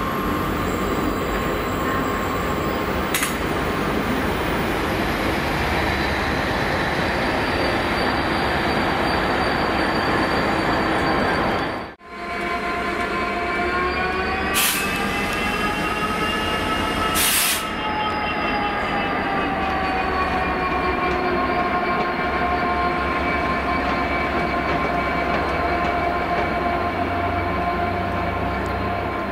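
A Class 66 diesel locomotive's two-stroke V12 engine running as the locomotive passes at low speed, with a steady whine over the engine noise. Two short hisses come a few seconds apart midway, and the sound breaks off sharply once, about 12 s in.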